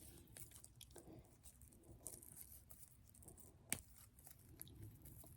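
Near silence with faint rustling and small clicks of hands twisting and handling pipe cleaners, and one sharper click near the middle.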